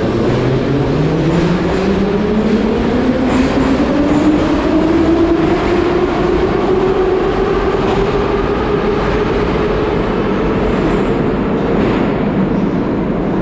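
Metro train pulling out of the station, its electric traction motors whining up in pitch as it accelerates and levelling off about two-thirds of the way in, over the rumble of the running train.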